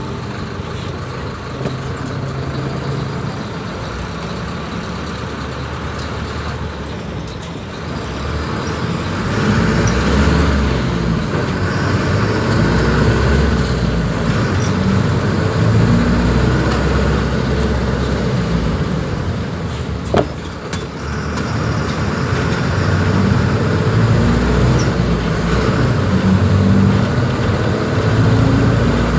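Mercedes-Benz OF-1721 BlueTec 5 city bus's front-mounted diesel engine running under way. It is steady at first and grows louder as the bus pulls from about eight seconds in. It eases off with a short sharp click a little after twenty seconds, then pulls again.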